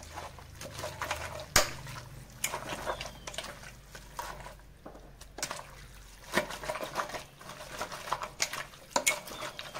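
Hands squeezing and kneading raw beef in a wet yogurt marinade in a stainless steel bowl, working the marinade into the meat: irregular squelching with small clicks, and one sharp knock against the bowl about a second and a half in.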